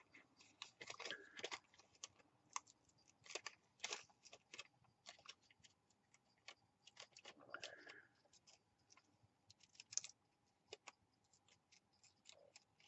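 Small scissors snipping through paper while cutting out a small paper image: faint, irregular clicks and snips, dozens of them spread unevenly.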